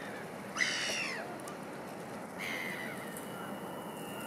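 Bird calls over steady background noise: a short call about half a second in, the loudest sound, then a longer call starting about two and a half seconds in.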